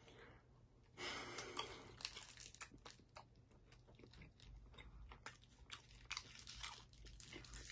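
Faint biting and chewing on a chocolate candy with a chewy centre: a short crunch about a second in, then soft, irregular mouth clicks.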